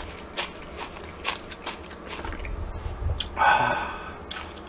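Close-up chewing of a mouthful of jajangmyeon noodles, with small wet mouth clicks. About three and a half seconds in, a short pitched sound lasts about a second.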